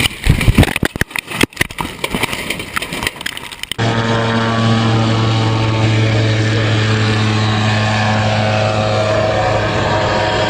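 Loud, irregular buffeting and rumbling, cut off abruptly about four seconds in by a steady engine drone with a deep hum and higher steady tones above it, typical of an aircraft engine running.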